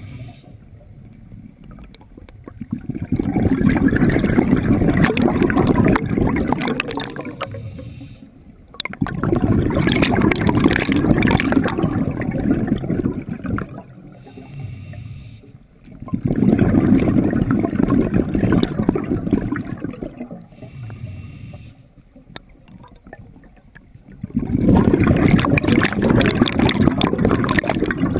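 Scuba diver breathing on an open-circuit regulator underwater: four long rushes of exhaled bubbles a few seconds apart, with quieter pauses between them while the diver inhales.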